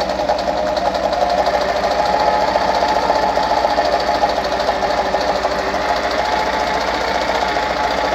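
Pfaff 230 sewing machine running steadily, stitching a close zigzag at a short stitch length, with a rapid, even clatter of needle strokes.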